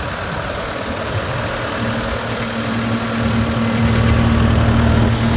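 Bobcat T550 skid steer's diesel engine running steadily, growing a little louder and fuller from about halfway through.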